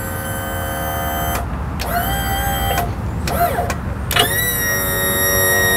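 Yamaha 90 outboard's power tilt-and-trim unit running: the electric motor and hydraulic pump whine as they raise the motor. The whine cuts out briefly and comes back rising in pitch about two and four seconds in. The trim is being cycled to work fresh fluid through and purge air after new seals.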